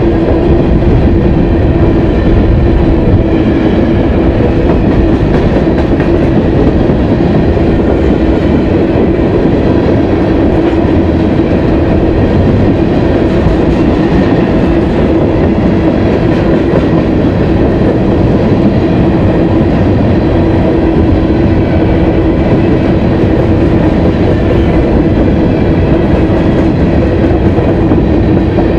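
BNSF freight train's cars rolling steadily past at a grade crossing: a loud, continuous rumble and wheel-on-rail noise with a steady hum running through it.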